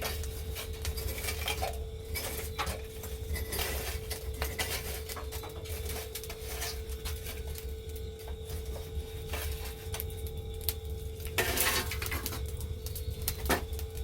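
Meat sizzling and charcoal crackling on a brazier grill, with scattered clinks of tongs and utensils against the grill and dishes. A louder cluster of clatter comes near the end.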